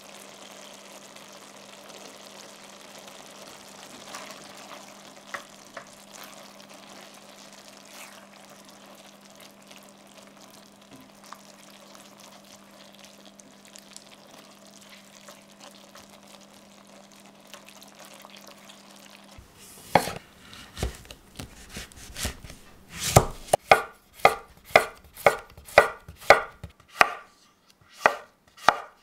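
Chef's knife slicing a courgette on a wooden cutting board: sharp, regular chops of about one and a half a second in the last third. Before that, a faint steady hiss and hum.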